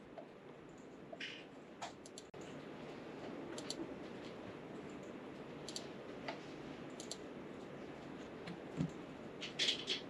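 Scattered computer mouse and keyboard clicks, single sharp clicks a second or so apart with a small cluster near the end, over a faint steady room hiss.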